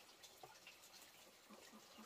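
Near silence, with scattered faint ticks and small scratching sounds.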